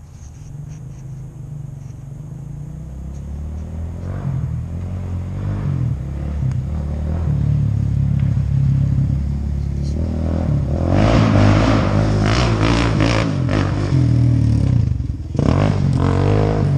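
Suzuki QuadSport Z400 ATV's single-cylinder four-stroke engine running through an aftermarket HMF exhaust. It grows steadily louder as the quad comes closer, then is loudest in the second half, where it revs up and down.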